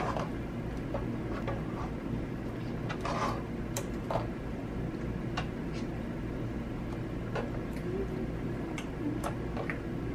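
Thick pink slime being folded, poked and stretched by hand, giving irregular sticky clicks and small pops, a few a second, over a steady low hum.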